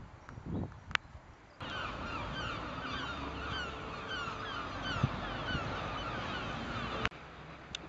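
A flock of birds calling over and over in many short, falling calls, over a low rumble. The calls start abruptly about one and a half seconds in and cut off shortly before the end. Before them come a few low gusty bumps and a single sharp click.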